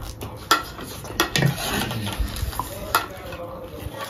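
Metal spoons scraping and clicking against paper plates as dry, crunchy puffed-rice chatpate is scooped up. A few sharp clicks stand out over the crackly rustle.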